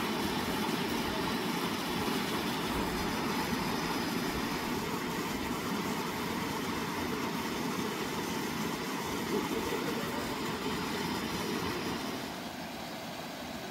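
Steady rush of a rocky mountain stream running over boulders and small cascades, a little quieter near the end.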